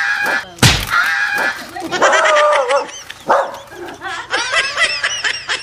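A woven bamboo basket lands with a thump about a second in. Then come a series of high, wavering animal cries, the higher ones quick and warbling near the end.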